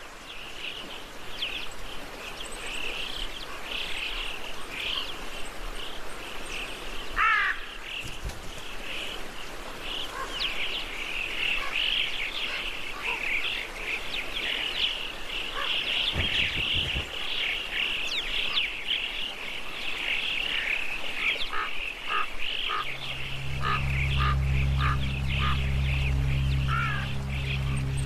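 A flock of birds calling continuously with dense high chirps and chatter, with a few rising whistled calls among them. Low sustained music tones come in near the end.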